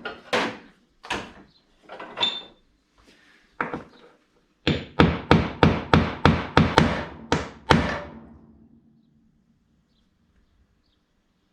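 Hammer tapping a wiper switch knob onto its shaft: a few spaced taps, then a quick run of about nine blows at roughly three a second, starting about halfway through.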